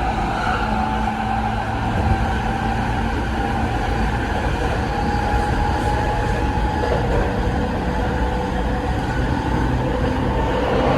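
Rinkai Line 70-000 series electric train running, its Mitsubishi IGBT-VVVF inverter and traction motors giving steady tones that shift slightly in pitch over the rumble of wheels on rail.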